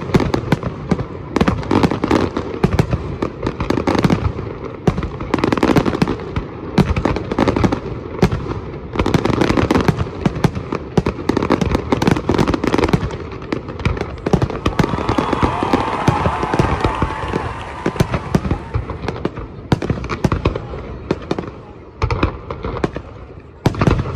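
Fireworks going off in rapid succession: a dense string of bangs and pops. A hissing crackle swells through the middle of the stretch.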